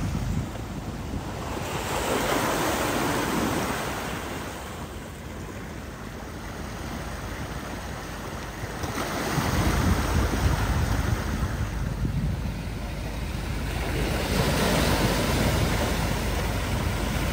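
Wind rushing and buffeting over the microphone, swelling and easing in gusts, with a deep rumble from about halfway through.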